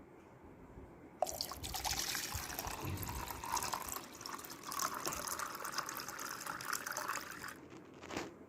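Water being poured into a steam vaporiser's water chamber, starting about a second in and stopping about a second before the end, then a short knock.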